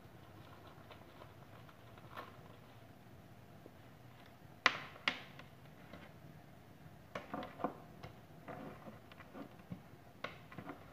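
Handling sounds from unpacking a Boya BY-M1 lavalier microphone: the pouch and the mic with its cable are handled and set down on a table. Two sharp clicks come about halfway through, followed by scattered light clicks and rustles.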